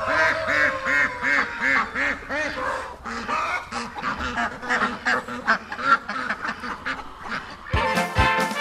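Ducks or geese calling: a fast, regular run of about seven quacks, then looser, mixed calls. Music with a steady beat and brass starts near the end.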